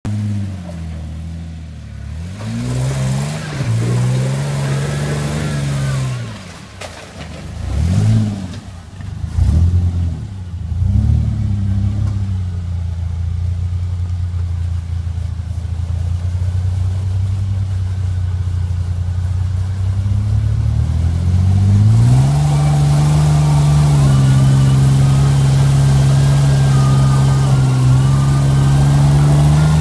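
Rock buggy's 4.3 Vortec V6 engine revving up and down in several bursts as it works over rock, then running steadily before revving up and holding high for the last several seconds. Near the end the tyres spin in the dirt, adding a rushing noise under the engine.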